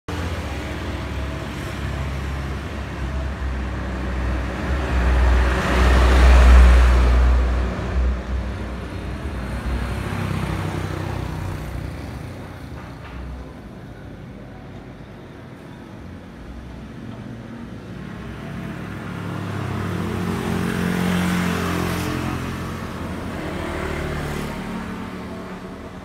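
Road traffic passing: vehicles go by over a steady traffic noise. The loudest one swells and fades with a deep engine sound about six seconds in, and another passes around twenty seconds in.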